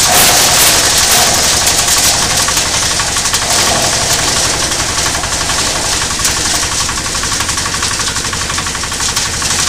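Compost shredder belt-driven by a small single-cylinder diesel engine, running at speed while green plant material is fed in and chopped. A steady, fast engine clatter under a loud shredding hiss that is strongest in the first few seconds.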